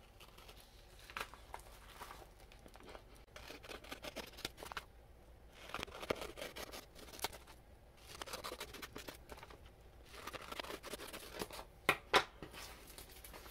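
Scissors cutting a sheet of printed tissue paper, in irregular runs of snips and paper rustling, with two sharper clicks near the end.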